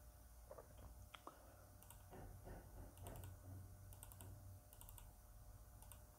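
Faint computer mouse clicks, mostly in quick pairs like double clicks, about one cluster a second, over a low steady hum.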